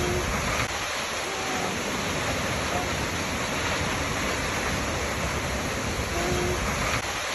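Waterfall: a steady, even rush of falling water, with a few faint short tones in the background.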